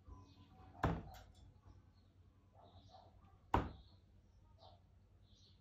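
Two darts striking a Winmau bristle dartboard, about two and a half seconds apart, each a sharp thud.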